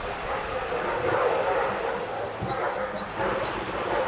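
A dog barking, with people talking faintly behind it.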